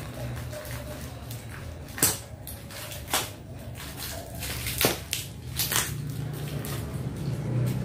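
Scissors cutting into a parcel's plastic wrapping and tape, with crinkling of the plastic and a few sharp snips and crackles.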